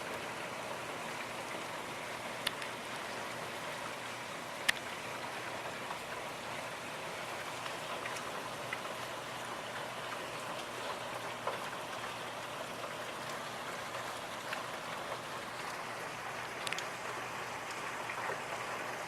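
Steady rain falling, a continuous patter with a few sharper drip clicks, the loudest about five seconds in.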